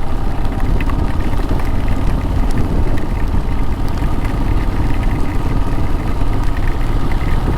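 Motorcycle engine running steadily, a dense even rumble.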